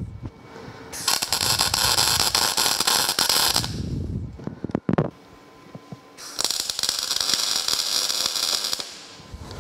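Lincoln 210 MP MIG welder arc crackling in two bursts of about two and a half seconds each, about five seconds apart: two tack welds fixing a steel leg in place.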